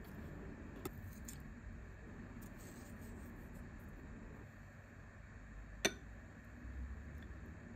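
Faint kitchen room tone with a small click about a second in, then a single sharp clink of a small glass cup near six seconds in, as the cup of milk is brought to the bowl to pour.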